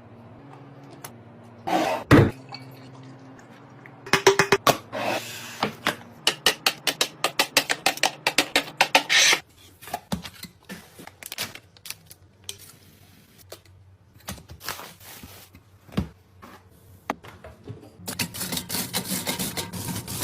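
Items and containers handled and set down while restocking a mini fridge: a sharp knock about two seconds in, then a quick run of clicks and rattles for several seconds, followed by scattered taps and rubbing.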